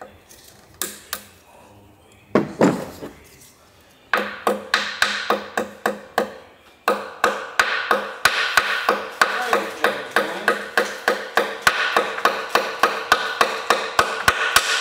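Ratchet wrench clicking steadily, about four sharp metallic clicks a second, as the main bearing cap nuts are undone. A few single metallic knocks come before it.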